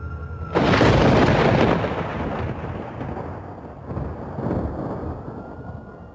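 A sudden loud clap of thunder about half a second in, rumbling away over the next few seconds with a couple more rolls, under a faint held synthesizer tone.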